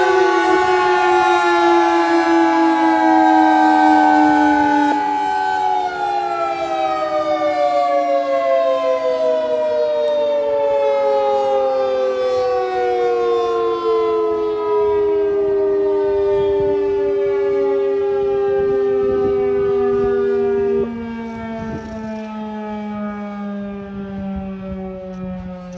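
Several outdoor warning sirens winding down together, their overlapping tones falling slowly in pitch. One steady tone cuts off suddenly about three quarters of the way through, and the last siren sinks lower and fades out near the end.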